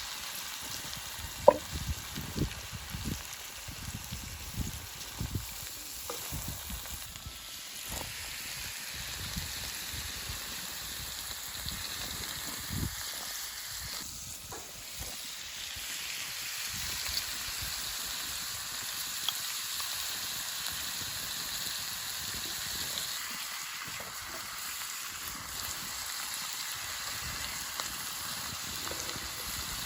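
Food sizzling as it fries in a pan, a steady hiss, with a utensil knocking against the pan several times, most sharply about a second and a half in.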